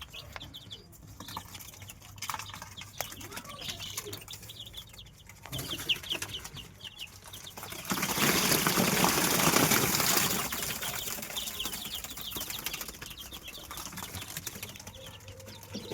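Rhode Island Red chicks peeping, many short high calls repeating throughout. About eight seconds in, a loud rustling lasts about two seconds.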